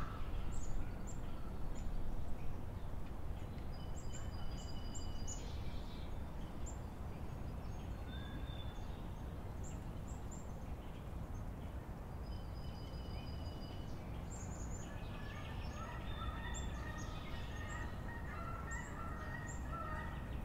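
Outdoor birdsong: scattered short, high chirps and a few held whistled notes from songbirds over a steady low background rumble, growing busier with more calls in the last few seconds.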